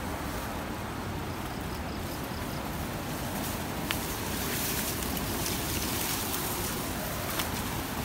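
Steady rushing of a nearby waterfall, with two sharp clicks, one about halfway through and one near the end.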